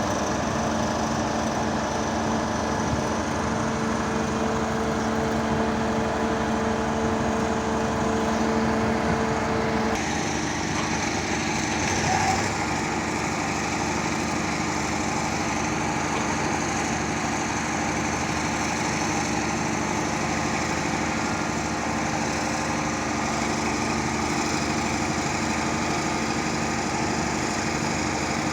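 Hydraulic static pile driver's engine and hydraulic power pack running steadily, the tone changing abruptly about ten seconds in.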